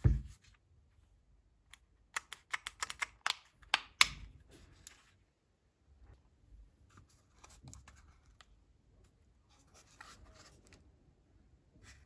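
Handling noise of a grimy Panasonic cordless screwdriver's plastic body: a knock as it is picked up, a quick run of sharp clicks and rattles a couple of seconds in, then faint rubbing and scraping as the split handle housing is pulled apart.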